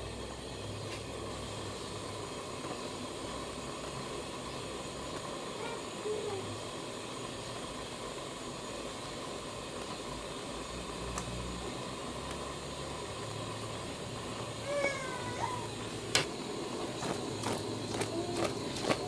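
Pot of pork stew simmering with a steady hiss. About fifteen seconds in comes a brief rising-and-falling call, then clinks and knocks of the aluminium pot as its handles are gripped and it is lifted off the stove.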